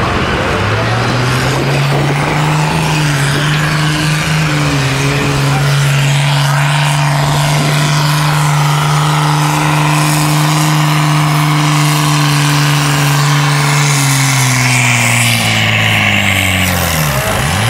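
Diesel engine of a 10,000 lb modified-class pulling tractor running at full throttle as it drags a weight-transfer sled, throwing black smoke. The engine holds a steady pitch under load, then winds down in the last few seconds as the pull ends.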